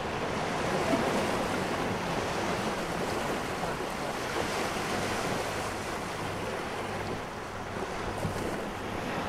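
Rough Mediterranean surf washing steadily onto a sandy beach, with some wind on the microphone.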